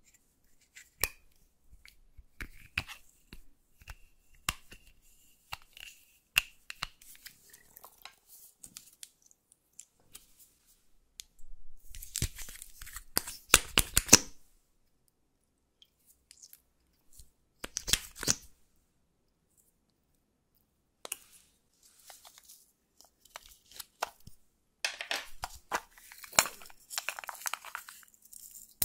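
Close-up handling of makeup containers: sharp clicks and scraping of a plastic spatula digging pressed makeup out of a compact, then noisy bursts as a makeup tube is pulled apart and a plastic glitter pot is opened. The loudest burst comes about twelve to fourteen seconds in.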